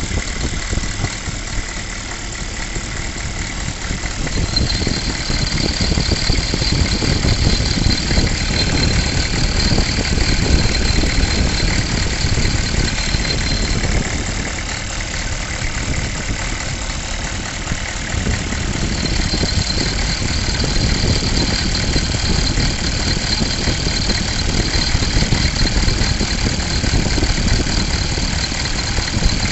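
GM 6.5 liter V8 diesel engine idling with a rattling noise, while smoke comes from its crankcase; the owner does not know the cause. A high steady whine rises above the engine twice, a few seconds in and again past the middle.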